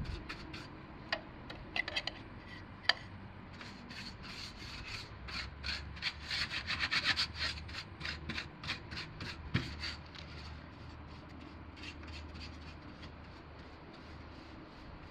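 Paintbrush scraping over galvanized sheet metal in many short, quick strokes, brushing on anti-rust paint, thickest a third of the way through, with a few sharp clicks in the first three seconds.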